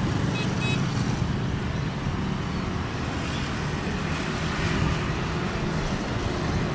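Steady low rumble of a twin-engine jet airliner's engines as it rolls along the runway.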